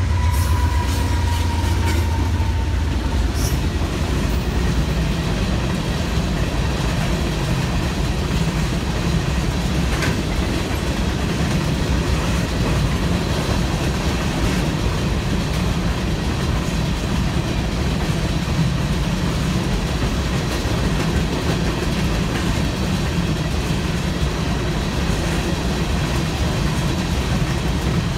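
Norfolk Southern freight train passing at speed behind three diesel-electric locomotives. The locomotives go by first with a deep rumble and a whine that falls in pitch over the first few seconds. Then a long string of loaded covered hopper cars rolls past with steady wheel-on-rail noise and clickety-clack.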